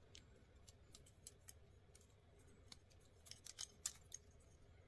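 Faint, scattered clicks of small plastic joints and parts as the legs of a small Mobility Joint Gundam figure are bent and handled, with a quick run of louder clicks a little past three seconds in.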